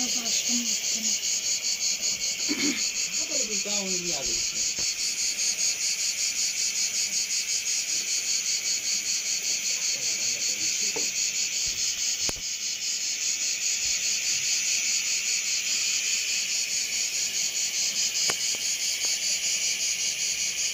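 Insects trilling steadily in a rapid, even pulse, high-pitched and unbroken.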